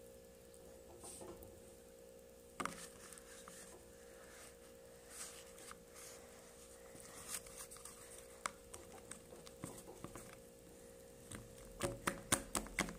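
Sticky glue slime being kneaded and pulled apart by hand, giving soft irregular sticky clicks and pats, with a quick flurry of them near the end. The slime is not yet fully activated and still clings to the fingers.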